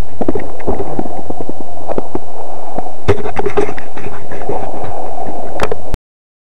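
Loud, distorted wind and handling noise on a small camera microphone, a rumbling rush with scattered knocks and rustles. It cuts off abruptly about six seconds in.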